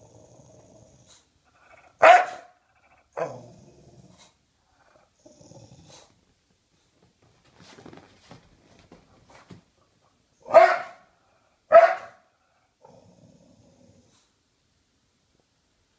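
English Bulldog barking and growling: four sharp barks, a pair about two to three seconds in and another pair around the middle, with low rumbling growls between them.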